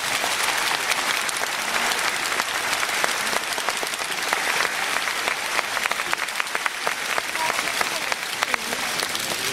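Large audience applauding: many hands clapping together in a dense, steady wash.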